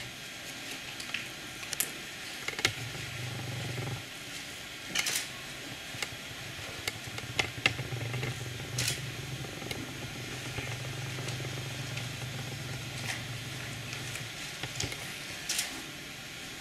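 Hall during a silent group prayer: a low steady hum that comes and goes, with a few short soft rustles and clicks from the people standing.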